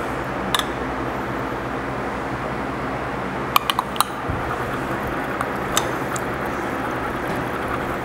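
A metal stirrer clinking against the side of a glass measuring cup while stirring liquid plastisol: one clink about half a second in, a quick run of three around the middle, and another a couple of seconds later. Under it runs a steady fan-like hum.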